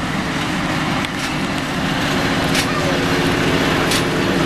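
SM42 diesel locomotive running steadily as it pulls a train past at close range, growing louder from about a second in. A few sharp clicks sound over the engine.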